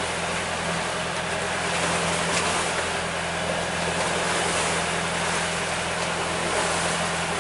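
A sailing yacht's inboard engine running at steady speed, a constant low hum heard inside the wheelhouse, under the rush of water and spray along the hull as the boat motors into the wind and swell.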